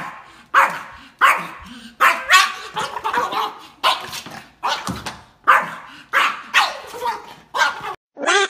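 A small Yorkshire terrier barking excitedly in rapid, high yaps, about two a second, at a squirrel outside a glass door. Near the end the barking cuts off and music with a sung voice begins.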